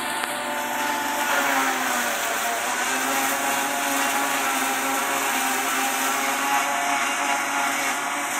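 Tractor diesel engine running steadily under load, heard close up from the driver's seat while pulling through a corn field during silage cutting, with the engine's pitch shifting slightly about two seconds in.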